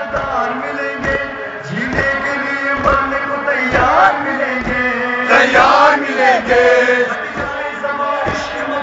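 A group of Muharram mourners chanting a noha, a lament, in unison, with regular thumps marking the beat a little more than once a second.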